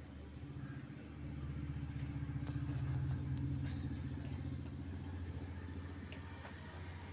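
Low, engine-like rumble with a fast steady pulse, swelling about a second in and then easing off. It is a wildlife documentary's soundtrack playing from the LG CRT TV's speaker, so the set is giving sound.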